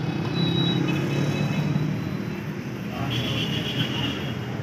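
Street traffic: a steady rumble of passing cars and motorbikes, with a brief high-pitched tone about three seconds in.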